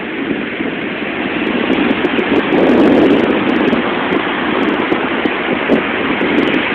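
Steady rushing noise of ocean surf and wind on the microphone, swelling about three seconds in.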